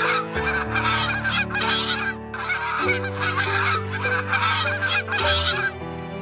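Goose honking in a rapid, continuous series of calls, with a brief break about two seconds in, stopping near the end. Soft sustained music chords underneath.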